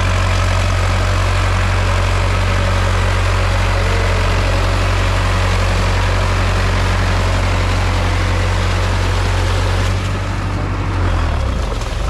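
Tractor engine running steadily under load while ploughing a flooded rice paddy; about ten seconds in its note wavers and drops slightly.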